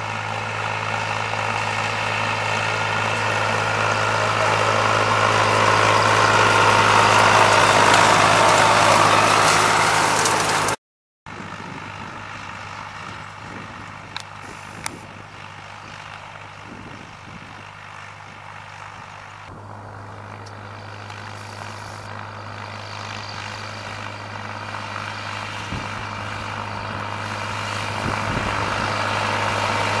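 Fendt 303 tractor's diesel engine running steadily as it pulls a Claas Liner 2700 rotary rake through cut grass. It grows louder as the tractor approaches, drops out for a moment about eleven seconds in, comes back quieter, and swells again as the tractor nears.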